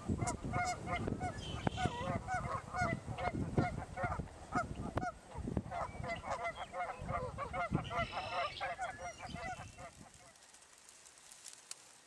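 A flock of sandhill cranes calling, many overlapping calls at once, which stop about ten seconds in.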